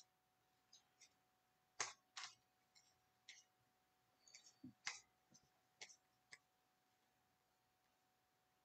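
Faint, irregular clicks and flicks of Topps baseball cards being slid off a stack and shuffled by hand, one card at a time.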